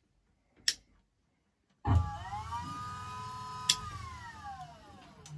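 Volvo electric power steering pump switched on: a click, then about two seconds in the electric motor starts with a sudden hum and a whine that rises, holds steady, and falls away as the pump winds down near the end. This is the pump's first run on its new wiring and controller, and it runs.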